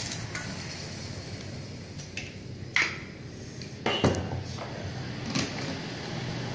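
A few sharp clinks and knocks of a glass coffee-bean jar with a metal lid, and a small steel cup, being handled, the loudest about four seconds in. A low steady hum runs underneath.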